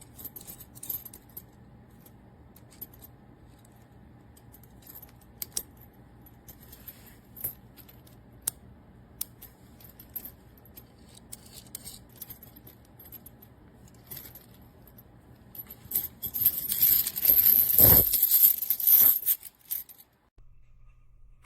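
Stainless steel chain links and carabiners clinking as they are handled, with scattered light clicks, then a louder, denser jangling about sixteen seconds in that lasts a few seconds.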